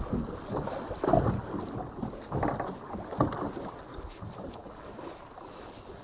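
Wind buffeting the microphone on a small boat at sea, in irregular gusts that are strongest in the first few seconds and then ease off.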